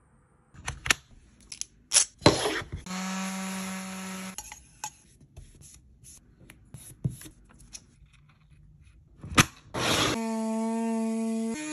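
A cordless rotary tool (HART 20-volt Precision Craft) runs in two short spells at a steady high whine: about three seconds in for a second and a half, and again from near the end. Between the spells come scattered clicks and knocks of tools and wooden coasters being handled.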